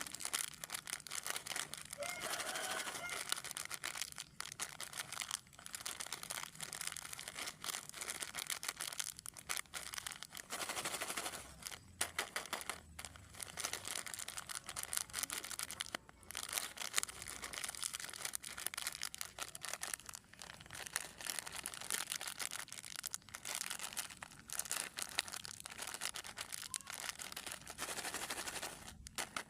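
Plastic snack packaging crinkling and crackling as it is handled, with occasional tearing.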